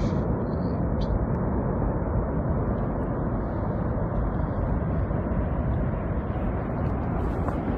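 An avalanche's blast of snow and air: a steady, loud, low roar with air buffeting the microphone and no distinct impacts.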